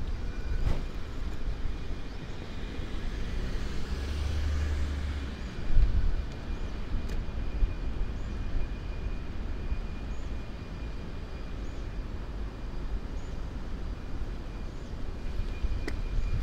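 Road traffic heard from a moving bicycle: a steady low rumble, with a vehicle passing about four seconds in.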